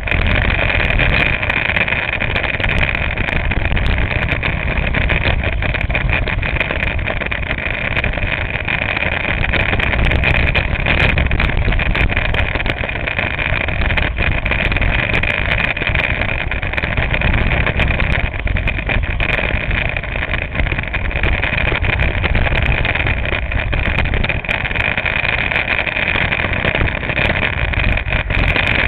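Go-kart engine running continuously under load, picked up close by a camera mounted on the kart. It makes a loud, steady drone that hardly rises or falls.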